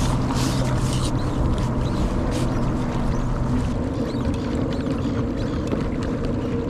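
A fishing kayak moving across open water: steady wind and water noise around the hull, with a steady low hum underneath and a few brief splashes in the first couple of seconds.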